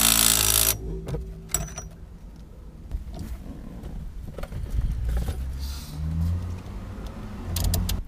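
Cordless drill/driver spinning a bolt into a Works Bell steering hub, cutting off under a second in. After it come scattered clicks and clinks of hand tools as the hub bolts are tightened with a ratchet wrench.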